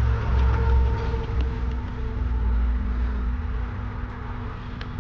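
Steady low rumble of a motor vehicle running, with a faint hum over it, swelling slightly in the first second and then holding; a couple of light clicks.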